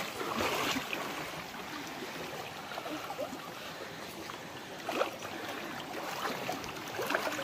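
Steady rush of spring water flowing in a stream-fed pool, with brief light splashing about five and seven seconds in.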